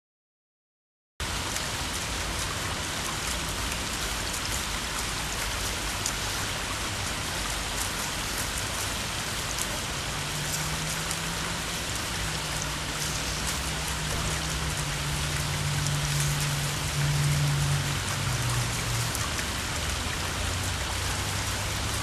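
Water from a pondless waterfall splashing steadily onto river rock and gravel, cutting in suddenly about a second in. A low hum sits under it for several seconds in the middle.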